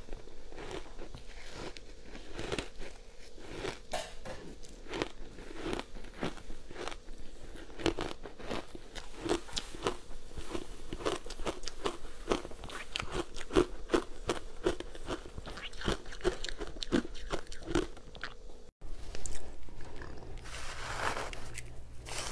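Close-up crunching bites and chewing of frozen matcha-powdered ice, a steady run of sharp crunches every half second to a second. Near the end, after a sudden break, a spoon scrapes and scoops through powder-topped shaved ice.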